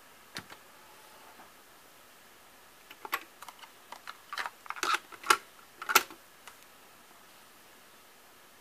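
Plastic clicks and clacks of a cassette being loaded into a Nakamichi MR-1 cassette deck and its cassette door being shut. There is a single click near the start, then a run of sharp clacks from about three to six and a half seconds in, loudest near the end of the run.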